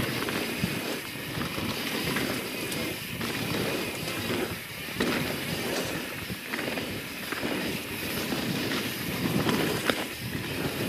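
YT Jeffsy 27 mountain bike ridden fast down a dirt trail: a steady rush of tyres rolling on dirt and leaves, with wind on the microphone and a few sharp knocks and rattles from the bike over bumps.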